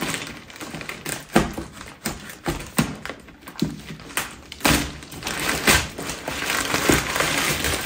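Plastic mailer bag crinkling and rustling as it is slit and pulled open by hand, with a run of irregular sharp crackles.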